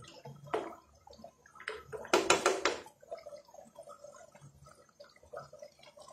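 Chicken and vegetable stew in a cornflour-thickened gravy bubbling and spluttering in a pan on a gas stove. About two seconds in comes a short burst of knocks and scraping, the loudest sound, from the wooden spatula in the pan.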